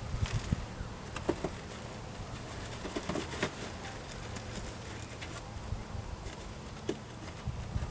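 Scattered light clicks and knocks of parts being handled and fitted by hand, over a steady low hum and background hiss.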